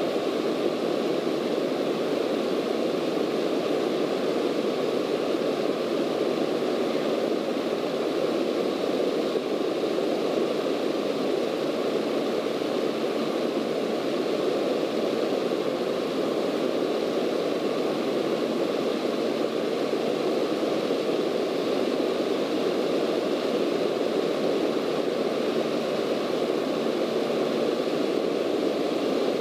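Steady drone of a Cessna light aircraft's piston engine and propeller, with rushing airflow, heard from inside the cabin in level flight.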